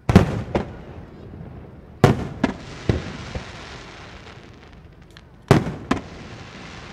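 Aerial firework shells bursting in three groups of loud booming reports, each a bang followed by one or two more within half a second. A hissing crackle trails off after the second group.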